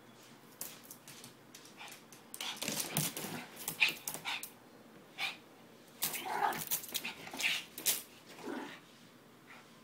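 Shih Tzu dog making short yips and whimpers while play-fighting, mixed with the scuffling rustle of a bedsheet. The sounds come in two bouts, one a couple of seconds in and a longer one in the second half.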